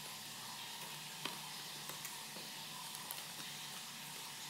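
Faint handling of a cardboard camera box as its lid is lifted open: a few soft clicks and taps, the clearest about a second in, over a steady low hiss.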